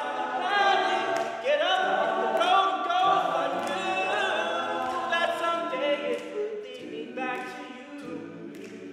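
Men's a cappella group singing in close harmony, several voices together with no instruments, some notes sliding up into pitch.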